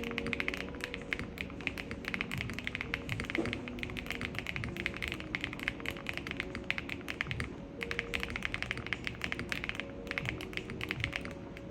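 Typing on a QK80 MK2 mechanical keyboard with SW x Keygeek Tori switches, an FR4 plate, full foam and Candy Box keycaps: rapid, dense keystrokes with a few short pauses, over background music.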